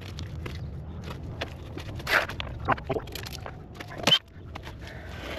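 Cordless impact wrench taking bolts off a compact track loader's track frame: short bursts of hammering, the loudest a little past two seconds and just after four seconds, among scattered clicks and clinks of metal.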